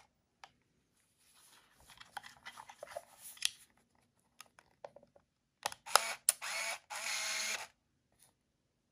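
Olympus Trip AF 30 DX compact film camera being operated: faint handling clicks, then a few sharp clicks, and about six seconds in the shutter fires with a loud click and the built-in motor whirs for about a second and a half, winding the film on.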